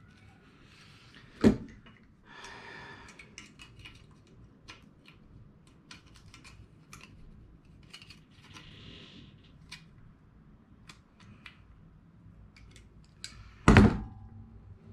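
Metal-shop handling at a DRDT-2 dimpling tool: light clicks and short rustles as the die is adjusted and the aluminium part is positioned. There is a sharp clack about a second and a half in. Near the end comes a loud metallic clunk with a brief ring as the dimpler is pressed to dimple a rivet hole.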